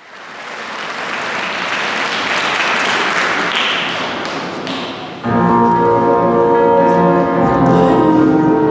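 Audience applauding, then about five seconds in the instrumental accompaniment of the song starts abruptly and carries on.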